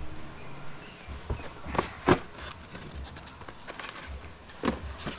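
Cardboard game box being opened by hand: a few short scrapes, taps and rustles of cardboard flaps and paper inserts, the loudest about two seconds in.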